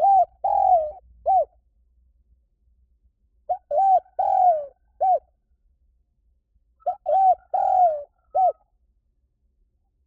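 Spotted dove cooing: three phrases of four coos each, one phrase about every three and a half seconds, the third coo of each phrase longer and falling. It is a territorial call recording of the kind used as a lure to draw spotted doves in.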